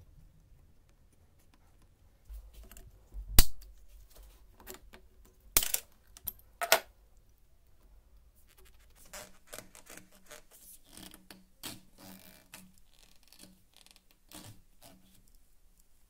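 Small metal parts and copper wire being handled: a few sharp metallic clinks, the loudest about three and a half seconds in, then a run of lighter irregular clicks and scrapes.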